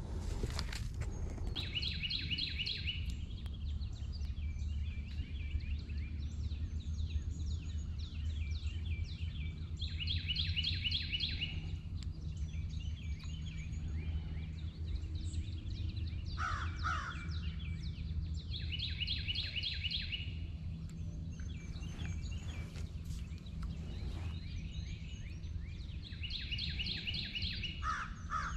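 A songbird repeating a short phrase of rapid high notes, about a second and a half long, four times at intervals of eight or nine seconds, with two lower, harsher calls in between, over a steady low rumble.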